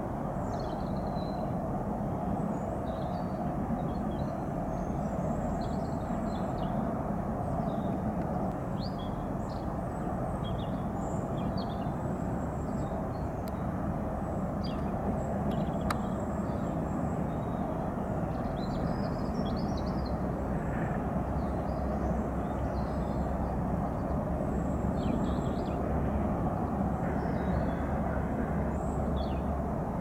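Embraer Phenom 300's twin turbofans heard from afar as a steady low rumble while the jet rolls out and taxis after landing, with small birds chirping over it.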